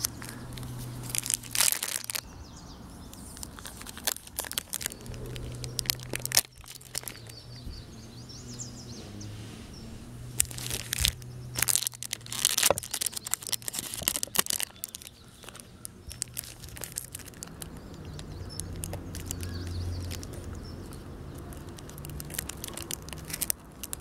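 Plastic cheese wrapper crinkling and tearing as a folding knife slits it open and fingers peel it back, in irregular crackles of varying loudness.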